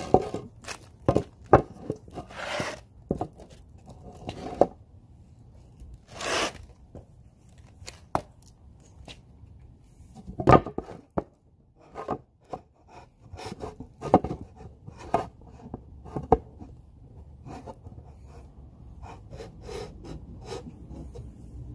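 Irregular knocks, taps and scraping from an old painted wooden siding board being handled and shifted against a wooden box, with a couple of longer rubbing swishes in the first few seconds.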